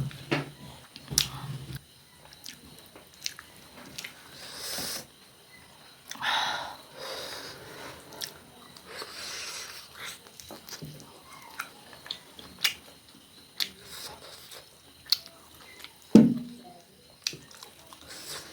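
Close-miked chewing and biting of food, with many small wet clicks and a few hissy swells about a second long. There is a sharp knock about sixteen seconds in.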